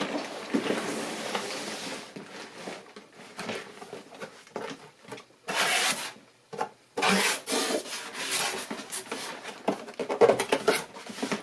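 Large cardboard Lego set box being opened and its contents slid out: irregular rubbing and scraping of cardboard, with a few sharper crackles.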